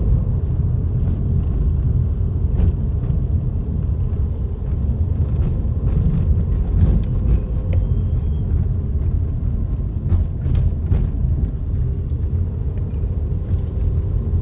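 Car on the move: a steady, loud low rumble of engine and road noise, with scattered light clicks and knocks.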